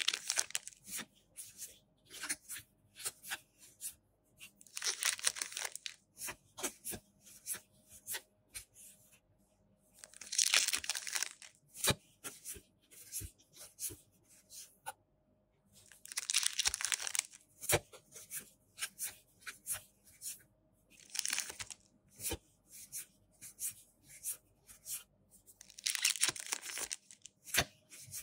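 Foil trading-card booster packs being torn open one after another, a noisy rip of about a second roughly every five seconds, with short light clicks of cards being handled between the rips.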